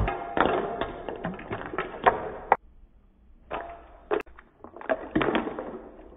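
Foam on a glass of freshly made milk sarbath fizzing and crackling as it overflows the rim, a dense run of tiny pops and clicks. It fades, stops for about a second, then comes back and fades again.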